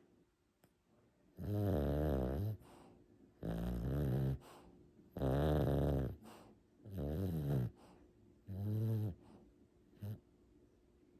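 A pet snoring: five drawn-out snores, each about a second long with a wavering pitched tone, at an even pace, then a short snore near the end.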